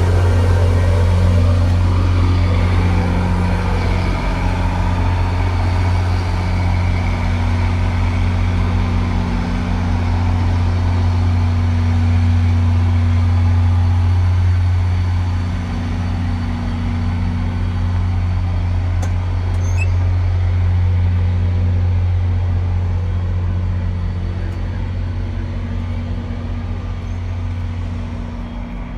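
Diesel locomotive engine of an NJ Transit GP40PH-2B running steadily under power as the train departs, a deep even hum with rolling train noise, easing slowly near the end.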